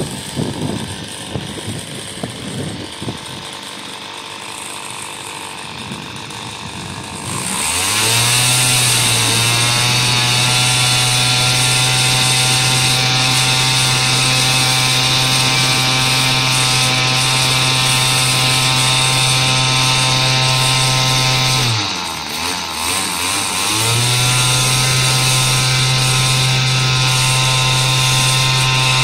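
Small two-stroke gas engine of an RC airboat, driving its caged propeller. It runs quieter and unevenly at first, then about seven seconds in revs up to a steady high-pitched drone. About two-thirds of the way through it drops back briefly and revs up again to the same pitch.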